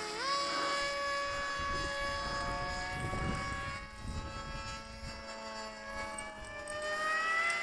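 Whine of a radio-controlled model plane's electric motor and propeller flying overhead. It jumps up in pitch just after the start, holds fairly steady, and rises again near the end.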